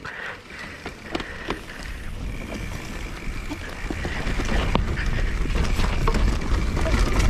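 Mountain bike rolling down a dirt and grass trail: wind rumble on the camera microphone that grows louder as the bike picks up speed, with scattered clicks and knocks from the tyres and bike over the ground.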